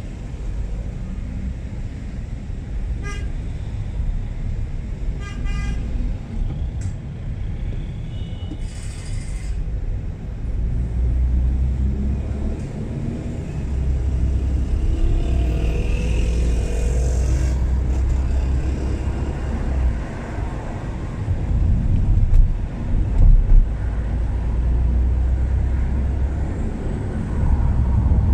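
City street traffic heard from a car driving along: a steady low road and engine rumble that grows louder in the second half, with short car-horn beeps a few seconds in.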